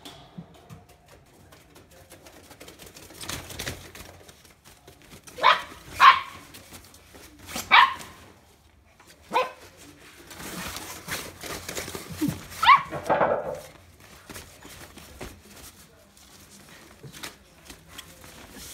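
Dog barking in short, sharp barks: a quick pair, two single barks, then another quick pair, with rustling in between.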